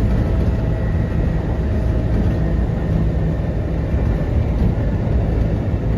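Kintetsu 1810 series electric train running, heard from inside the car: a steady low rumble of wheels and running gear with a faint steady whine.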